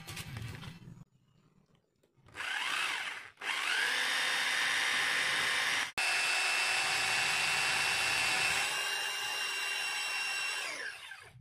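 Ryu RRH26 rotary hammer drilling into a plastered masonry wall. It starts with a short spin-up and a brief stop, then runs steadily with a steady whine for about eight seconds and winds down near the end.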